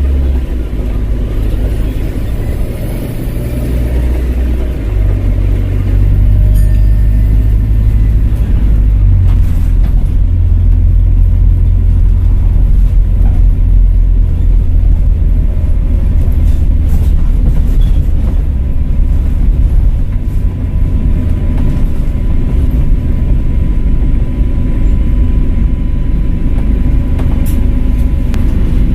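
Volvo B5LH diesel-electric hybrid bus under way, its diesel engine running with a heavy low rumble. The engine note shifts a few times in the first several seconds and then settles steady, with a faint thin whistle above it.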